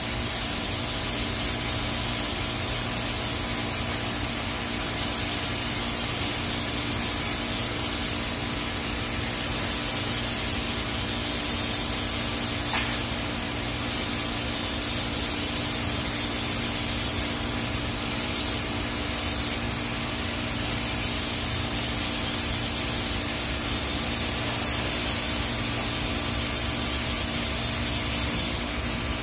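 TIG welding arc on a stainless steel pipe root pass: a steady hiss with a low electrical hum beneath it. There is a single faint tick roughly midway.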